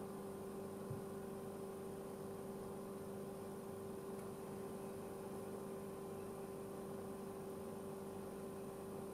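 Steady low electrical hum with a faint hiss, and one small click about a second in.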